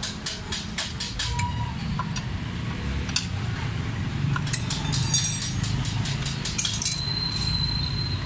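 Rapid, regular metallic clicking of a wrench working the drive-pulley nut on a scooter's belt drive, with the pulley held by a holder tool, in two runs with a pause between. A thin high squeak sounds near the end, over a steady low rumble of street traffic.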